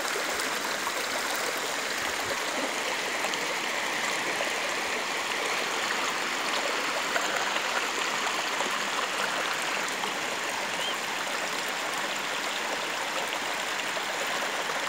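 Water of a small waterfall cascading and splashing in a steady, unbroken rush.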